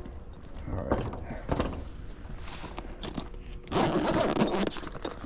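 Irregular crunching and scraping noises, several short ones and a longer, louder stretch about four seconds in.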